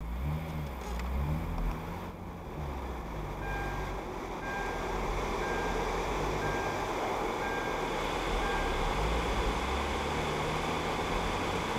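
A car's engine and road noise heard from inside the cabin while driving slowly, with a short high electronic beep repeating about once a second, six times, from a few seconds in until near the end.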